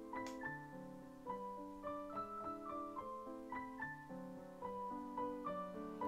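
Soft background piano music: a gentle, unhurried line of single notes over lower sustained notes.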